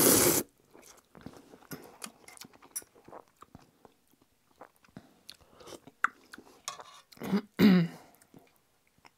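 A loud slurp of hot ramen noodles right at the start, then chewing with small wet clicks and smacks. A short vocal sound from the eater comes near the end.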